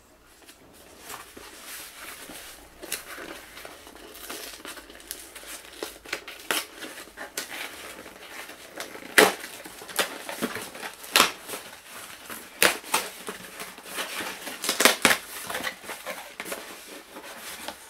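Product packaging being handled and opened by hand: irregular rustling, crinkling and sharp crackles, busier and louder from about a third of the way in.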